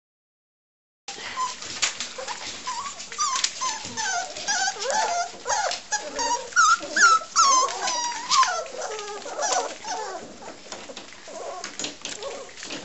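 A litter of 40-day-old English springer spaniel puppies whining and moaning together after being bathed, many overlapping high cries that rise and fall, with scattered sharp clicks. It starts about a second in.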